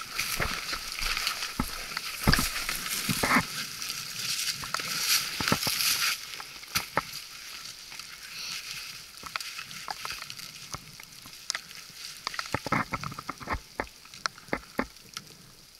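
Footsteps crunching through dry brush and leaf litter with twigs brushing past, denser for the first six seconds; then rustling and scattered clicks as a backpack is rummaged through and a camera taken out.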